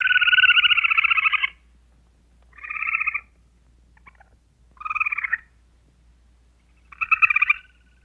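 Squirrel chattering: four bursts of fast rattling calls. The first lasts about a second and a half, and the three after it are shorter, with a second or more of quiet between them.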